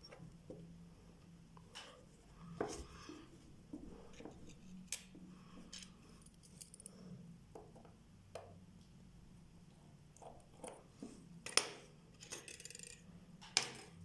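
Scattered small metallic clicks and taps of watchmaker's tools on a Vostok Amphibian mechanical watch movement as it is fixed in a holder and worked on, with a brief scraping stretch and two sharper clicks near the end.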